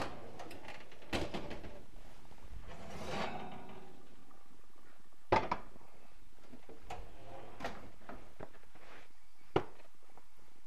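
Kitchen oven door opening with a knock, then a quick rattle as the oven rack slides out. A heavy blue enamelled pot is lifted out and set on the gas stove's grate with a couple of sharp clanks about five seconds in, and another sharp knock comes near the end as the oven door is shut.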